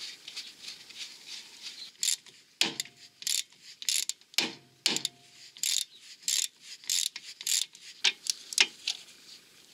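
Ratchet wrench clicking in repeated short bursts as the track rod end nut is run down onto its stud, starting about two seconds in. Faint handling noise comes before it.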